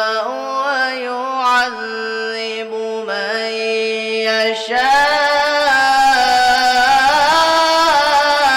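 A boy's solo Quran recitation in melodic tajweed style, amplified through a microphone, drawing out long, ornamented held notes. About five seconds in the voice steps up to a higher, louder phrase.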